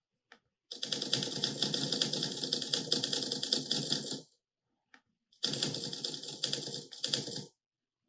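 Rapid run of typewriter-keystroke sound effects, recorded key samples played back by a web page once for each character typed on screen, each at a different loudness. The clatter stops about four seconds in, starts again about a second later and stops shortly before the end.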